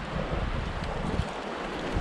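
River water rushing steadily over rocks, with wind buffeting the microphone in low gusts during the first second or so.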